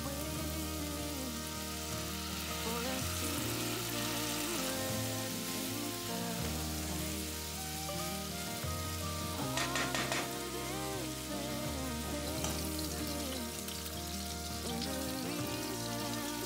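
Ground pork sizzling as it fries in a pan and is broken up and stirred with a wooden spatula, with a brief cluster of sharp scraping clicks about ten seconds in. Background music plays over it.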